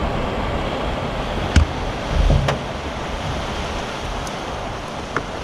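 Strong wind and heavy rain in a night storm: a steady rushing noise with gusty low rumbles, and a few sharp taps about one and a half and two and a half seconds in.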